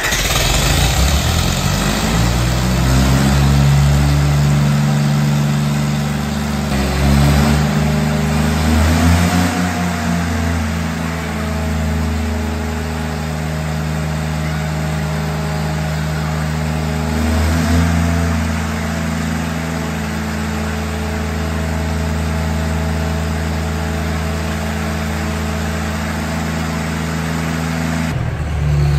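1949 Farmall M tractor's four-cylinder gasoline engine running just after starting, holding a steady idle, its speed rising and easing slightly a few times.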